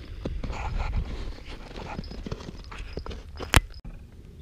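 Boots crunching and scuffing on packed snow and ice, irregular steps, with one much louder sharp knock near the end. It cuts off abruptly to a quieter steady hum just before the end.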